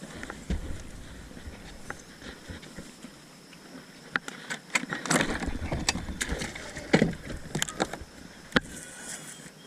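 Irregular knocks, clicks and rustling of handling on a small fishing boat, busiest in the middle, with one sharp knock near the end.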